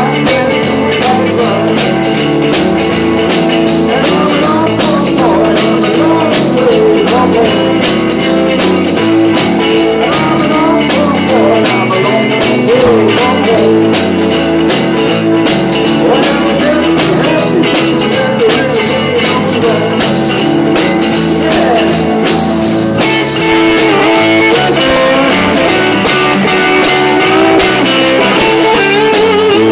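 A live rock and roll band playing, with the drum kit keeping a fast, steady beat. The sound gets brighter about two-thirds of the way through.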